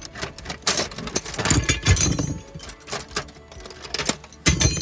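Metal sockets and hand tools clinking and rattling against each other as they are rummaged through, in a quick irregular run of sharp clicks.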